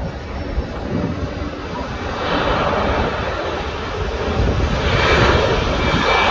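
Jet engines of a Boeing 737 airliner at takeoff power on its takeoff roll: a loud rushing jet noise that builds from about two seconds in.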